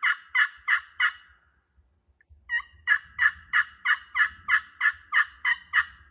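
Turkey pot call, a 3 1/4-inch crystal surface over a copper soundboard worked with a lighter striker, yelping: a short run that ends about a second in, then after a pause about a dozen more yelps at roughly three a second.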